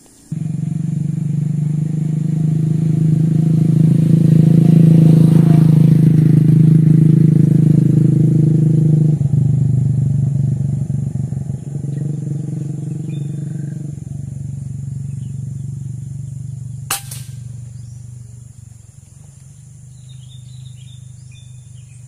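Steady hum of a road vehicle's engine that swells and then slowly fades away. About 17 seconds in comes a single sharp crack, the shot of a PCP air rifle, and faint bird chirps follow near the end.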